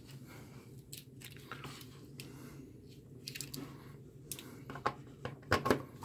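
Scattered light clicks and rattles of a heat gun's cord and plug being handled, with a few sharper knocks near the end as the plug goes into a wall outlet. A low steady hum runs underneath.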